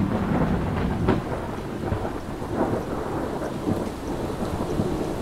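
Storm ambience: steady rain with low rumbling thunder.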